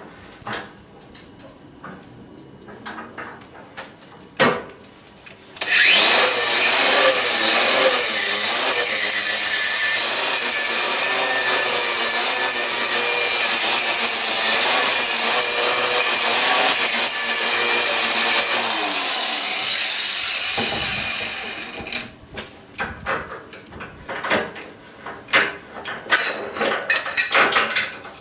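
Angle grinder grinding on a welded steel exhaust pipe: it starts about six seconds in, runs steadily for about twelve seconds, then winds down after it is switched off. Light metal clinks and tool handling before and after.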